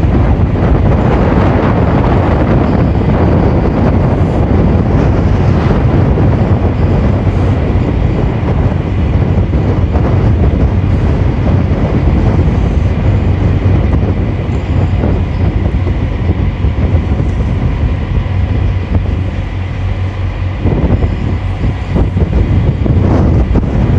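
Strong wind buffeting the phone's microphone aboard a small naval support vessel under way, over the steady low rumble of the boat's engine. The noise is loud and continuous, easing slightly about three-quarters of the way through.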